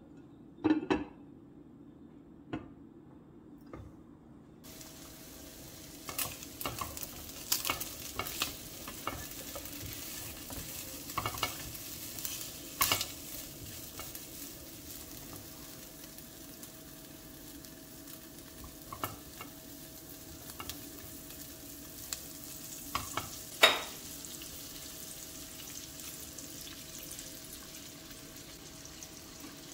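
A glass lid clinks onto a pot about a second in. Then chopped lamb sizzles and fries steadily in a non-stick pot while it is stirred with a silicone spatula, which scrapes and knocks against the pot now and then, once loudly about two-thirds of the way through.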